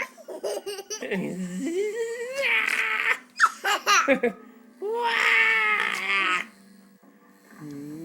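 A young child making a weird, high-pitched vocal noise: wavering squeals and babble, with two long drawn-out calls about two and a half and five seconds in, and a few sharp clicks between them.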